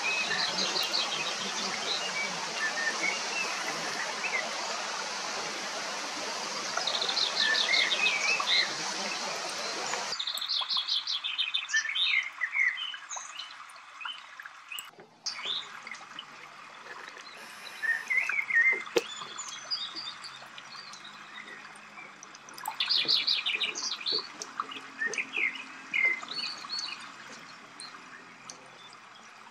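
Small songbirds chirping, with repeated short high trills. For about the first ten seconds a steady rush of running water lies under them, then cuts off suddenly, leaving the birds over a quiet background.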